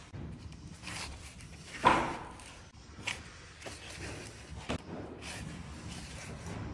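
Wooden parquet pieces being handled and fitted into a floor: a run of knocks, clicks and scrapes, with one loud knock about two seconds in.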